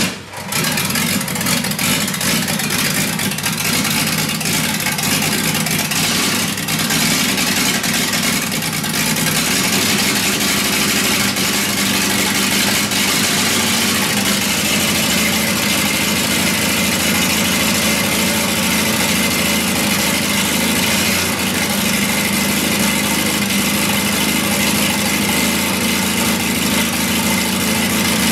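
Freshly rebuilt Toyota 1HZ 4.2-litre straight-six diesel running on a test stand just after its first fire-up. It dips briefly right at the start, runs unevenly for the first several seconds, then settles into a steady idle.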